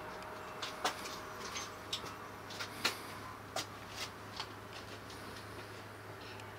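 Irregular light clicks and taps, about nine in the first four and a half seconds and then fading out, over a steady low hum.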